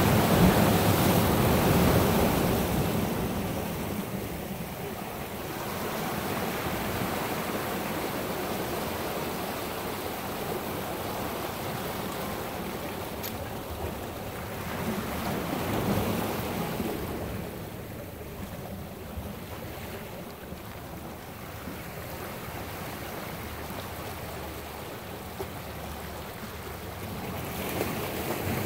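Sea waves breaking and washing over shoreline rocks, the surge swelling louder about a second in and again around the middle before settling back.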